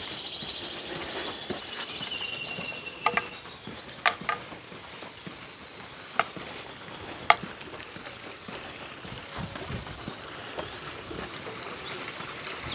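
Small aviary finches twittering and trilling in high, rapid calls, with a few sharp clicks and knocks in between and a quick run of very high chirps near the end.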